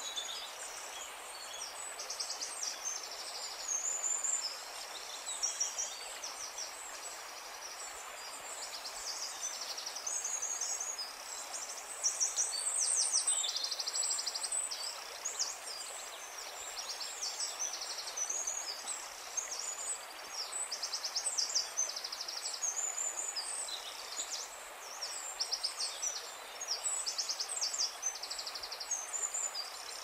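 Many songbirds chirping and singing together: high, overlapping chirps and fast trills of rapidly repeated notes with no pause, over a steady background hiss.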